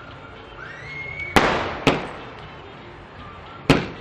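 Fireworks exploding: three sharp bangs, two close together about a second and a half in and one more near the end, each trailing off in a long echo. A faint rising whistle comes just before the first bang.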